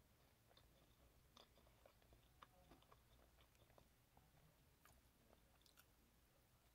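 Faint chewing and mouth sounds of a person eating fried chicken strips, with small scattered clicks.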